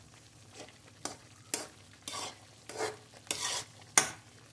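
Slotted steel spatula stirring thick semolina halwa in an aluminium kadai, scraping the pan in short strokes about every half second, starting about half a second in. The halwa is cooking in ghee and sugar syrup and is stirred until it thickens.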